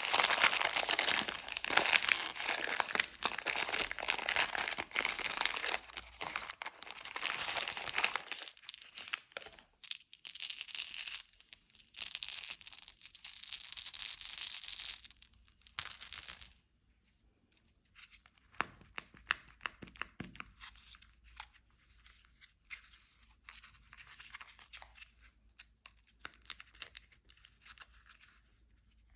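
Candy wrappers being torn open and crinkled by hand. The crinkling is dense and loud for the first several seconds, comes in shorter bursts after that, and in the second half drops to softer, scattered crinkles and small clicks.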